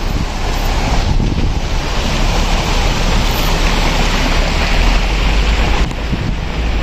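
Steady rushing of a mountain stream tumbling over rocks, with wind rumbling on the microphone.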